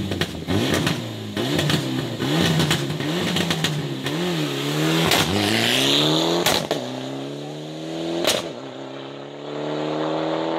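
Mitsubishi Lancer rally car's engine revved up and down at the start line with sharp cracks between the revs, then launching at full throttle about five seconds in. The engine pitch climbs through the gears, with two upshifts as it pulls away.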